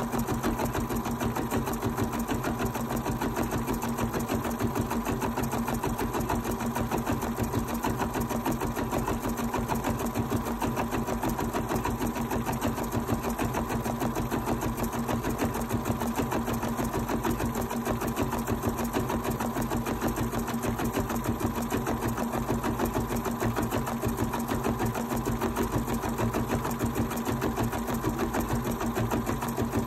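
Bernina 790 sewing and embroidery machine stitching out an applique embroidery design at steady speed: a rapid, even run of needle strokes over a steady motor hum, without a break.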